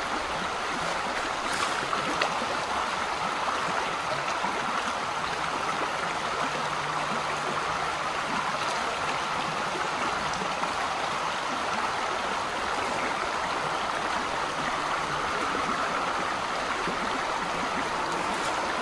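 Shallow creek running steadily over rocks and stones in a riffle.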